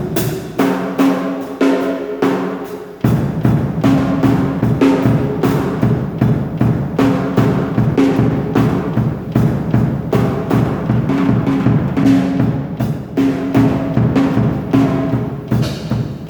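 A drum kit struck in a fast, steady stream of hits by someone who does not know how to play, mostly ringing tom and drum strokes. A deeper low thud joins about three seconds in.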